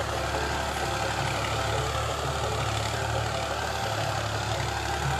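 Ghazi farm tractor's diesel engine running steadily under load as it pulls a rotary tiller through the soil, heard from a distance as an even, low drone with no change in pitch.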